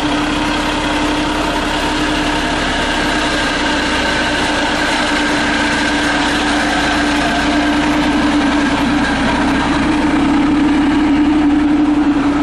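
Narrow-gauge diesel locomotive's engine running as it pulls a train slowly past, a steady drone with a strong low hum that grows a little louder toward the end.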